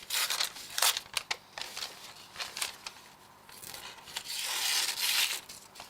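Thin paper rustling and tearing as a knife blade cuts through it: a few short strokes, then a longer, louder cut about three and a half seconds in.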